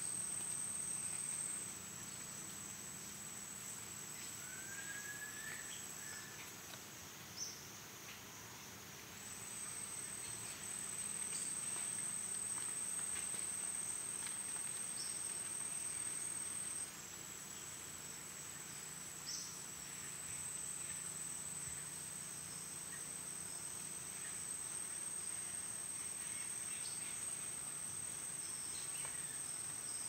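Amazon rainforest insects shrilling in a steady high-pitched drone. The drone drops in level about two seconds in, comes back strongly around nine seconds, and shifts slightly lower in pitch around seventeen seconds. A bird gives one short rising call about five seconds in, and there are a few brief high chirps.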